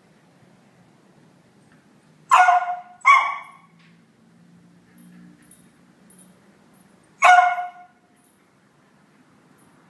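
Beagle barking at another dog that holds her toy: two loud barks close together about two seconds in, then a third a few seconds later.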